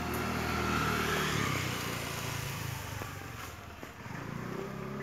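Engine of a passing motor vehicle, rising to its loudest about a second in and then fading away, with another engine coming up near the end.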